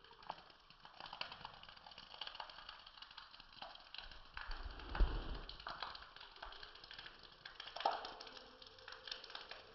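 Irregular patter and tapping of raindrops during a rainstorm, with a louder low thump about five seconds in.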